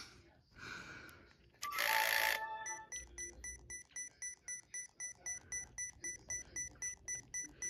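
Digital camera with a broken lens: a short burst of grinding noise about two seconds in, then rapid electronic beeping, about four beeps a second, the camera signalling its lens fault.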